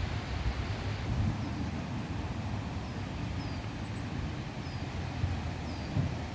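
Steady hiss of rain over a low rumble, with a bird repeating a short, high, falling call about once a second from about halfway through.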